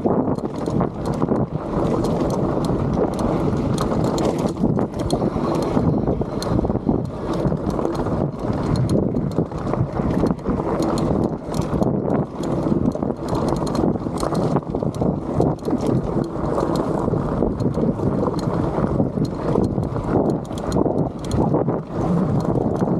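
Bike ridden fast down a rocky trail: continuous clatter and knocking as the tyres and suspension hit rocks, with wind rushing on the microphone.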